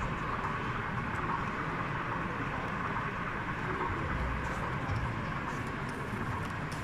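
Steady background noise of a large exhibition hall: an even hiss with a low rumble underneath and a few faint clicks.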